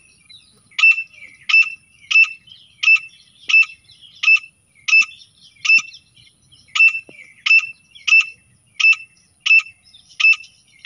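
Grey francolin calling: a short, sharp, shrill note repeated evenly about one and a half times a second, with a brief break about six seconds in.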